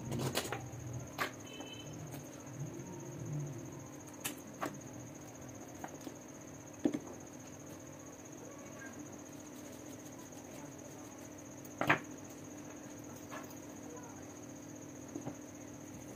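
Scattered light clicks and knocks of soldering-iron parts and small tools being handled on a tiled tabletop, the sharpest knock about twelve seconds in. Under them run a steady high-pitched whine and a low hum.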